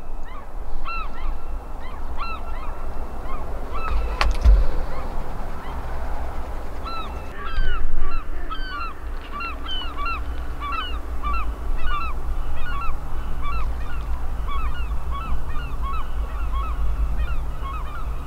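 A flock of geese honking, many short calls in quick succession, sparse at first and much denser and louder about seven seconds in. A single sharp knock about four seconds in, over a steady low rumble.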